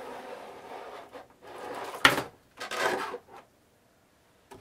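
Cardboard box being slid off the clear plastic clamshell packaging of a CPU cooler: a steady sliding rub, then a rustle and a sharp knock about two seconds in, followed by another short rustle.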